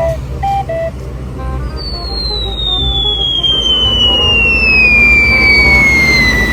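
A long falling whistle sound effect, the cartoon bomb-drop kind, starting about two seconds in and sliding steadily downward in pitch for about five seconds over a steady low engine rumble. A few short pitched notes sound at the start.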